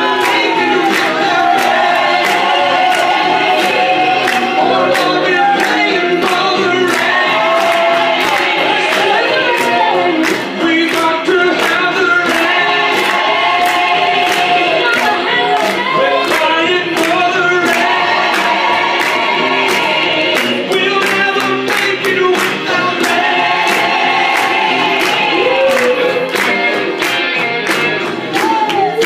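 A group of voices singing a lively Christian song together over a steady beat of about two strokes a second.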